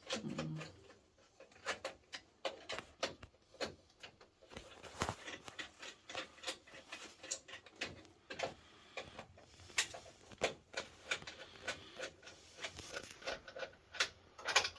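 Hands working on fuse holders and clips in an electric water heater's control panel: irregular small plastic and metal clicks, taps and rubbing.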